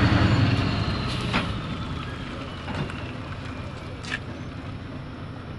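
Heavy truck's diesel engine running as it tows a circus wagon past and away, fading over the first couple of seconds, with a faint high whine slowly falling in pitch. Two short sharp knocks come about a second in and again near four seconds.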